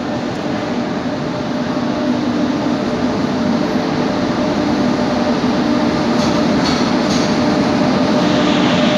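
An electric locomotive drawing a passenger train slowly into the platform: a steady rumble and hum that grows louder as it approaches, with a few clicks from the wheels about two-thirds of the way through.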